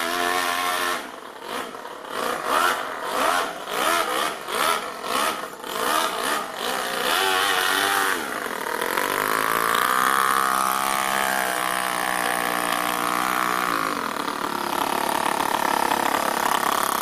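Toyan FS-L200 two-cylinder four-stroke nitro model engine in an RC car, revved in a quick string of short throttle blips, then held at a steady higher speed for several seconds before dropping back to a smooth idle near the end.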